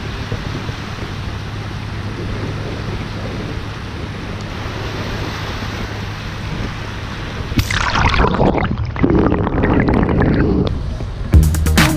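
Small surf washing up the shallow beach at the waterline, with wind on the microphone. About two-thirds of the way in a wave washes in close and the water gets louder for about three seconds. Electronic dance music cuts in just before the end.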